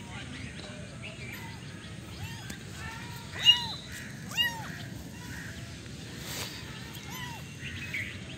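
Kitten mewing over and over in short rising-and-falling cries, with faint bird chirps behind.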